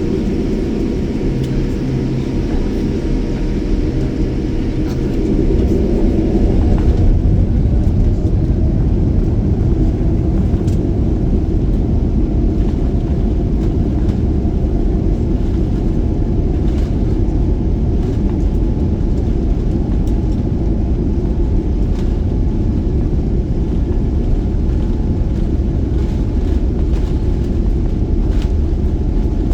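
Inside a jet airliner's cabin at takeoff: a deep rumble of the engines and the rolling aircraft grows louder about five to seven seconds in as the engines come up to takeoff power, then holds steady and loud.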